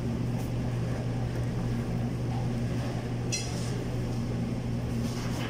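Steady low mechanical hum over even background noise, with one short sharp clink about three seconds in.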